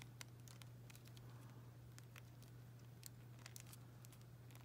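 Near silence: faint, scattered clicks and taps of tiny plastic doll pieces being handled and pressed onto a small doll, over a steady low hum.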